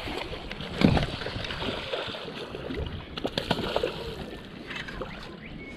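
Water sloshing and splashing around a small fishing boat, with wind on the microphone, a thump about a second in and scattered small knocks and clicks.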